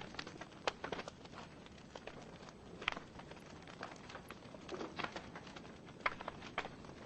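Wood fire burning in a fireplace: irregular crackles and pops from the logs, a few a second, over a soft steady hiss of the flames.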